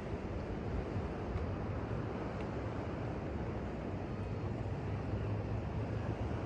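Steady surf and wind noise on the microphone at the beach, with a low steady hum joining in about a second and a half in.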